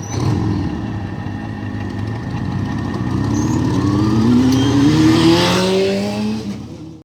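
A road vehicle's engine accelerating past, its pitch rising steadily and getting louder from about three seconds in, then fading near the end.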